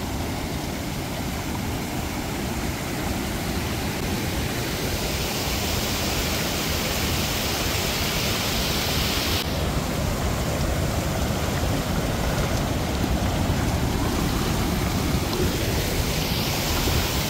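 Water spilling over a low concrete weir and running through its shallows: a steady rushing hiss. The hiss grows brighter for a few seconds around the middle and then drops away suddenly.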